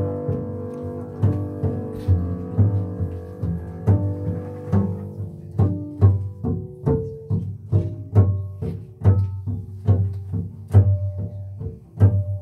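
Two double basses improvising freely: held, overlapping bowed notes at first, then from about five seconds in a quick, irregular run of short plucked and struck notes.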